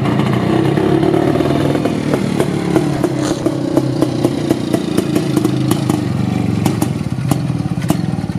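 IZh-49 motorcycle's single-cylinder two-stroke engine, fitted with a VAPE electronic ignition, running steadily as it is ridden, with sharp clicks through it.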